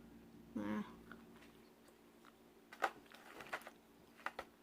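A person chewing and biting food close to the microphone, with a few sharp crunchy clicks in the second half and a short murmur under a second in.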